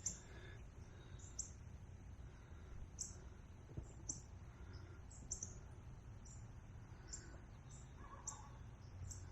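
Faint outdoor ambience: scattered short, high chirps, about one or two a second, over a low steady rumble.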